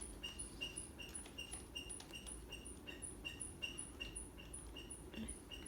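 Ceiling fan squeaking: a short, high chirp repeating evenly, nearly three times a second.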